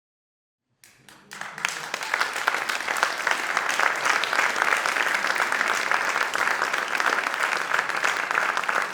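Crowd applause: a few scattered claps about a second in, quickly swelling into steady, dense clapping from many hands.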